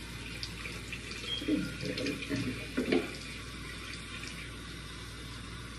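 Bathroom sink tap running steadily into the basin while soap is rinsed off the face, with some louder irregular sounds of handling the water between about 1.5 and 3 seconds in.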